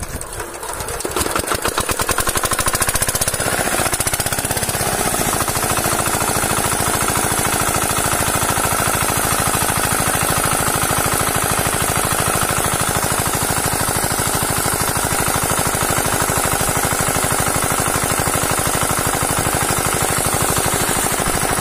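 Small single-cylinder diesel water-pump engine, hand-cranked, catching within the first couple of seconds and then running steadily with a rapid, even knock while the pump throws water out of its outlet.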